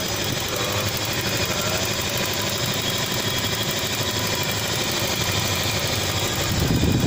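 Toyota Kijang Kapsul's four-cylinder petrol engine idling steadily, heard close up in the open engine bay.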